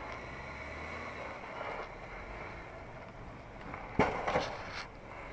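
Jeep Wrangler Unlimited engine running low and steady as the Jeep crawls down a rock ledge. A sharp knock comes about four seconds in, followed by a few smaller knocks.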